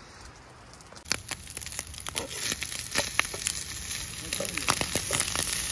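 Diced meat sizzling and crackling in a frying pan over campfire coals, with a metal knife scraping and stirring it in the pan. The sizzle starts about a second in.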